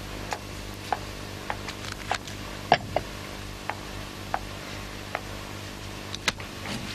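Light, sharp ticks about every half second to a second, not quite even, over a steady low hum in a quiet room.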